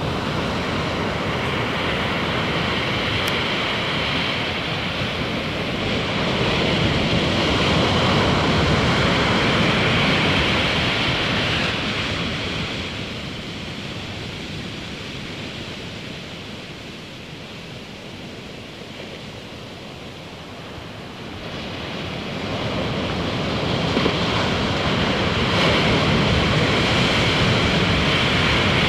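Sea surf: waves washing in as a steady rushing noise that swells, eases off through the middle, and swells again near the end.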